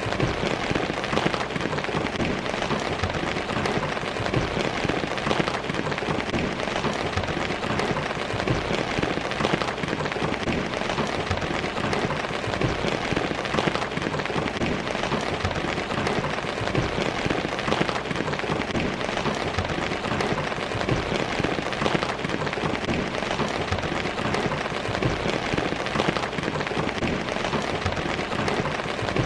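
Steady heavy rain falling and pattering on surfaces, a dense even hiss of countless drops.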